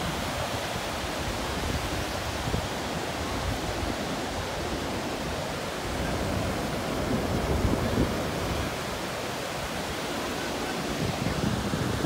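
Waves of Lake Michigan breaking and washing onto a sandy beach, a steady rush of surf mixed with wind rumbling on the phone's microphone.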